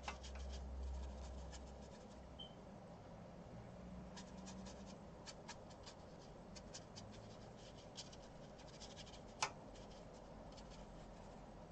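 Faint scratching and light ticks of a watercolour brush working paint in a tin paint box and stroking it onto paper, with one sharper tick late on. A low hum stops about two seconds in.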